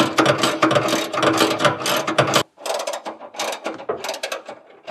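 Hand ratchet wrench being worked, a fast continuous run of pawl clicks for about two and a half seconds, then a short pause and shorter, sparser bursts of clicking.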